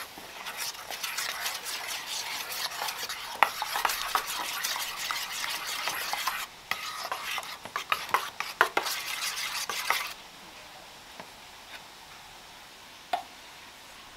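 A spoon stirring gelatine powder into cold water in a stainless-steel bowl, scraping and clinking against the metal, with a brief pause about six and a half seconds in. The stirring stops about ten seconds in, leaving near quiet with a single tap near the end.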